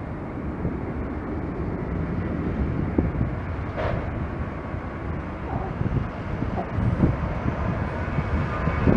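Steady rumble of the Rolls-Royce Trent 7000 jet engines of an Airbus A330-900 as the airliner moves toward the microphone, with a brief higher sound about four seconds in.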